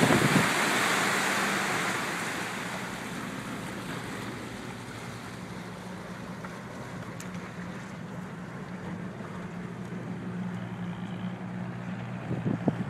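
Crownline CR 250 cruiser under way and slowing: the rush of the wake and wind fades over the first few seconds, leaving the engine's steady low hum. A few low knocks come near the end.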